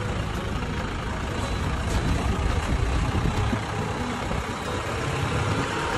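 Engine and road noise of a utility vehicle, heard from inside the cab while it drives along a town street: a steady low rumble under a noisy hiss.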